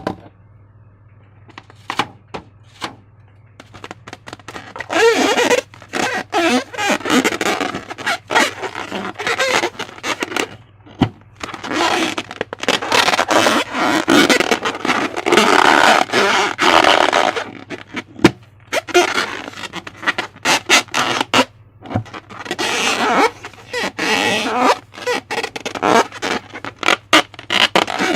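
Slime being squeezed and worked by hand: wet sticky crackles and squelches with sharp popping clicks, coming in three long spells with quieter pauses between.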